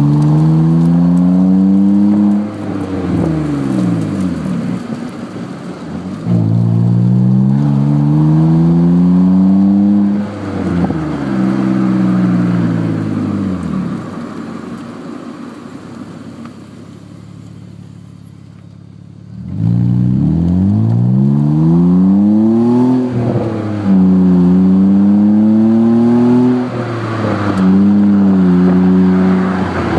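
BMW exhaust through a Megan Racing aftermarket muffler, heard at the twin tailpipes while the engine is revved again and again. The pitch climbs and falls back several times, with a quieter stretch near idle around the middle.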